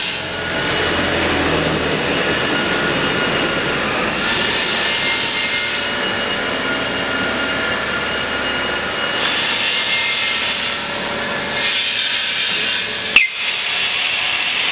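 PVC membrane vacuum press machine running through its heating and vacuum suction stage: a steady machine noise with a hiss that swells twice for a couple of seconds. A single sharp click comes near the end.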